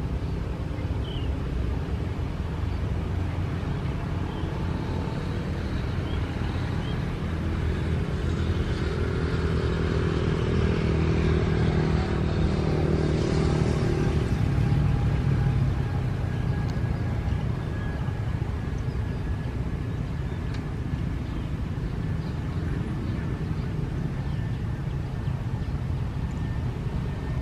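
Road traffic passing close by: motorcycles and a car over a steady low rumble, growing louder as the car goes past about ten to fifteen seconds in.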